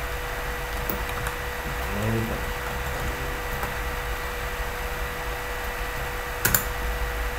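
Steady microphone hiss and electrical hum with a faint constant tone, and a few light computer-keyboard clicks, the sharpest about six and a half seconds in.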